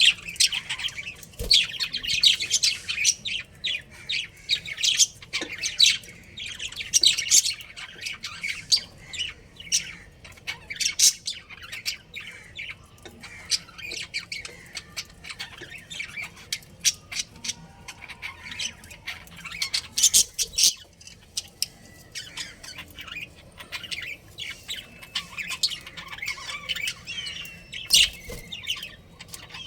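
Budgerigars chirping and chattering: a dense, continuous run of short, high calls and squawks, busiest in the first half.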